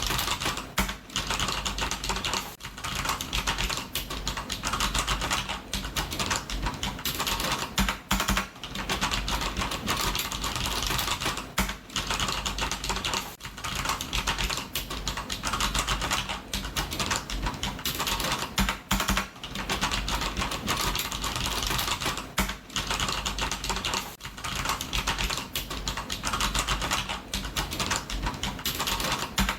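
Fast continuous typing on a computer keyboard: a rapid stream of key clicks with short pauses every second or two.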